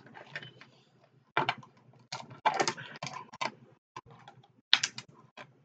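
Cooked crab leg shells being cracked and snapped open by hand: an irregular run of crisp cracks and crackles, with a few louder snaps.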